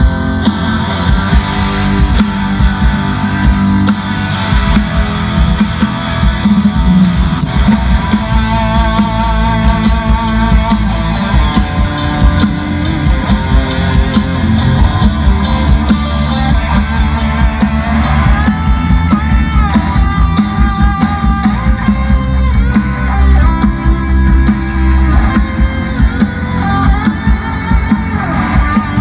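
Loud rock music with guitar, played over a large RCF line-array PA system during soundcheck.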